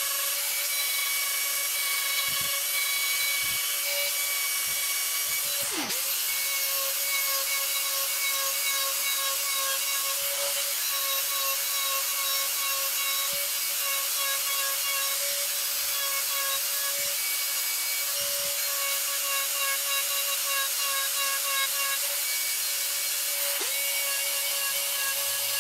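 Handheld cordless rotary tool running a small burr bit against wood as it carves texture: a steady motor whine over a gritty grinding hiss. The whine dips briefly about six seconds in and again near the end.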